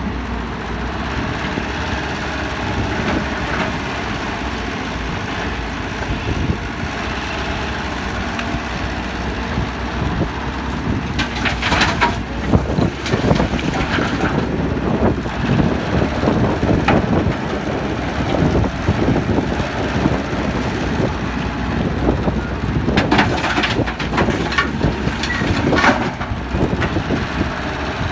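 Heavy diesel construction machinery, an excavator working alongside dump trucks, running steadily with a deep rumble. Two louder rushing bursts come about twelve and twenty-three seconds in, with scattered knocks later.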